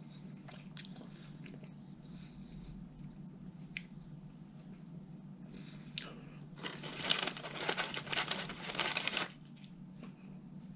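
Paper crinkling and rustling, like fast-food wrapping or napkins being handled, loudest for about two and a half seconds late on, after a few light clicks and taps.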